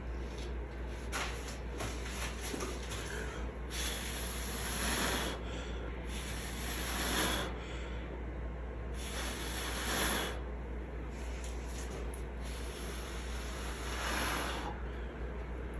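A person blowing hard by mouth onto wet acrylic paint, a series of long puffs of breath a few seconds apart, pushing the teal paint outward into a bloom.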